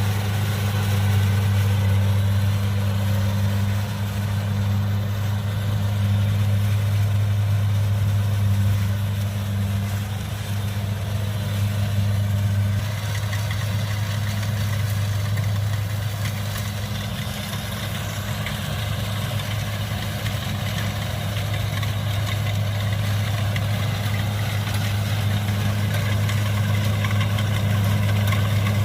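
Kubota DC70 combine harvester running steadily with a deep, even engine hum, a little quieter for a while in the middle.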